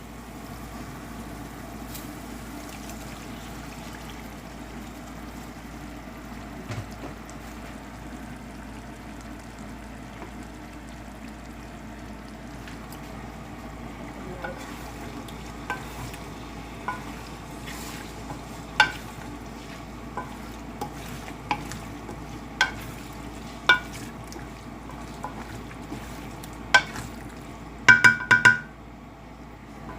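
Chicken liver frying in hot oil in a pan, a steady sizzle. Partway through, a spatula starts clinking and scraping against the pan at irregular moments, with a short run of ringing metal clatter near the end.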